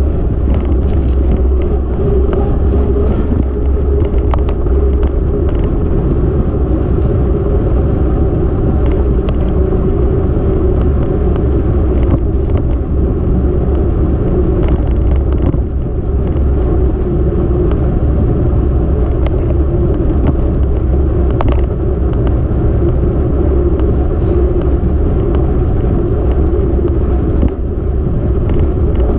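Steady wind buffeting and rumble on a moving action camera's microphone, with road noise underneath and a few faint clicks and knocks.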